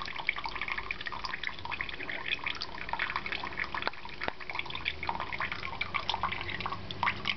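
Small ceramic tabletop fountain: a thin stream of water trickling and dripping into its basin in a quick, irregular patter, with a couple of sharp clicks about four seconds in.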